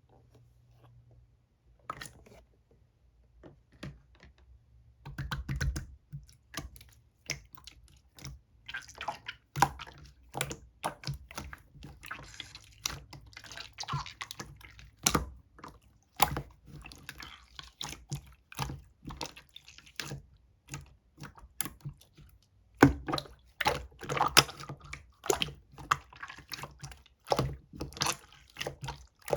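Clear slime being squished, poked and pulled by hand: irregular sticky clicks and wet pops, few at first and coming thick and fast from about eight seconds in.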